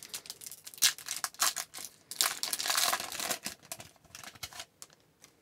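Upper Deck hockey card pack wrapper being torn open and crinkled, with quick clicks and rustles of the cards being handled; the handling noise dies away shortly before the end.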